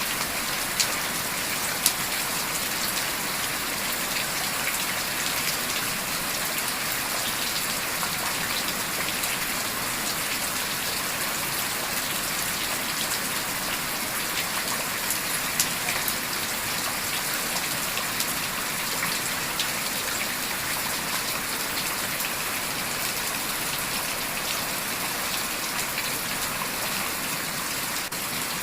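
Steady rain falling on a surface, an even hiss of drops, with a few sharp clicks near the start and about halfway through.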